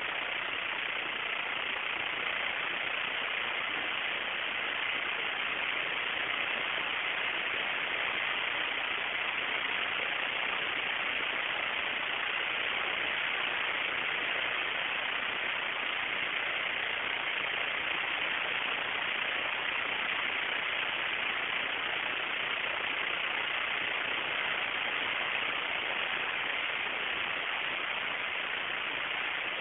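Steady, even hiss with no other sound in it: static-like recording noise.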